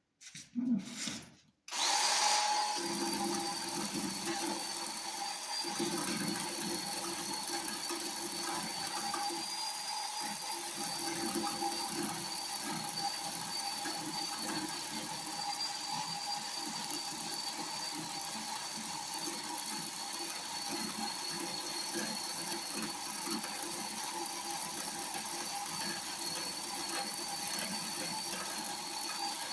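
Electric chainsaw starting up about two seconds in and running steadily as it cuts a high spot off a cedar log, with a constant high whine and a rougher cutting sound that rises and eases with the load. A few short knocks come before it starts.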